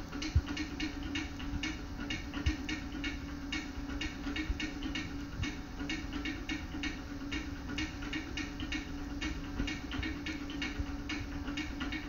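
Music playing from a television, recorded off the set's speaker: a steady, fast beat of crisp ticks, about four a second, over a low steady hum, with a few soft low knocks.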